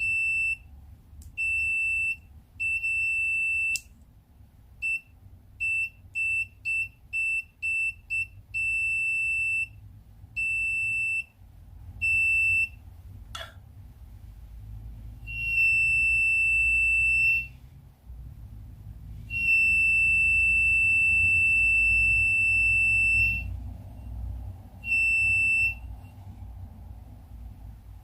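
A 5-volt buzzer in a home-made infrared security alarm beeping on and off as the beam to its photodiode sensor is broken and restored. It gives one steady high tone in beeps of uneven length: a quick string of short beeps early on, then two long ones of about two and four seconds, with a single sharp click midway.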